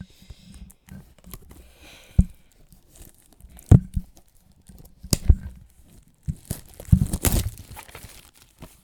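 Packaging being handled and torn open by hand: scattered knocks and crinkles, with a longer tearing noise about seven seconds in.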